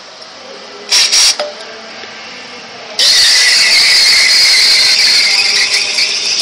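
Espresso machine steam wand: two short blasts of steam about a second in as the wand is purged, then a sudden loud, steady, high-pitched hiss from about halfway as it steams milk.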